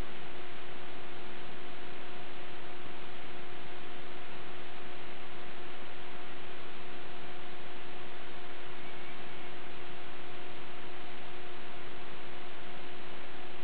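Steady hiss with a constant low hum and a fainter higher hum an octave above it, unchanging throughout, with no separate events.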